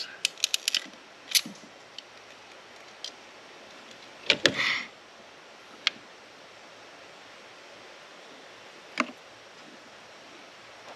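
Hand wire crimpers clicking several times in quick succession as they crimp a terminal onto a wire, followed by a few separate sharp clicks and a short rustle from handling plastic connectors.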